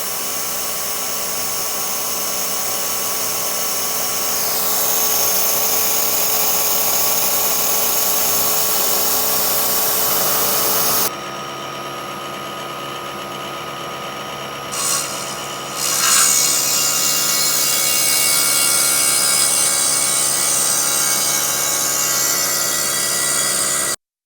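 CNC milling machine running, its spindle whining steadily while the cutter mills material. The noise drops suddenly about halfway through, comes back louder a few seconds later, and cuts off just before the end.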